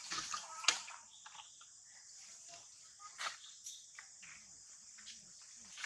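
Insects keeping up a steady high-pitched chorus, with several sharp clicks or snaps over it, the loudest about a second in and another about three seconds in.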